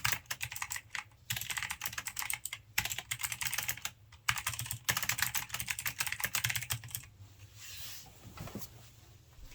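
Logitech G513 Carbon mechanical keyboard with clicky GX Blue switches being typed on fast, in runs of rapid clicks broken by brief pauses. The typing stops about seven seconds in, leaving a faint rustle and a couple of soft knocks.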